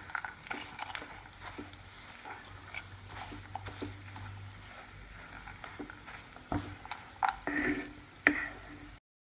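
Wooden spatula stirring and scraping crumbly coconut halwa with cashews around a nonstick pan: a run of soft scrapes and taps, with a few louder knocks against the pan in the last few seconds before the sound cuts off suddenly.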